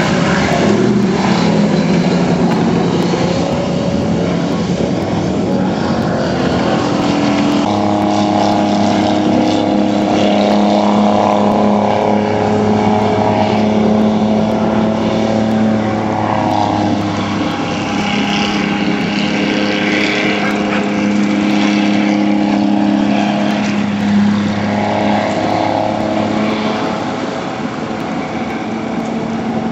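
Jet boat engine running hard at high revs. Its pitch swings up and down over the first several seconds, then holds steady at full throttle for long stretches, dipping briefly twice, over the hiss of the water jet and spray.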